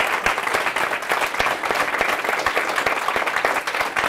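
Audience applauding: many hands clapping steadily at the end of a lecture.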